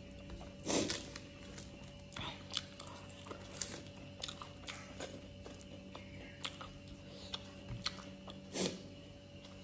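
Close-miked chewing and wet mouth sounds from eating rice mixed with sisno (stinging nettle) by hand, with fingers squishing rice against a steel plate. Many short smacks and clicks, two louder ones about a second in and near the end, over a faint steady hum.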